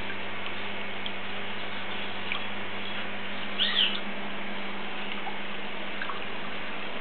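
Steady rush of water driven through a river-style aquarium by pumps rated at 39,000 litres an hour, with a steady low hum under it. Two short high chirps sound just past halfway.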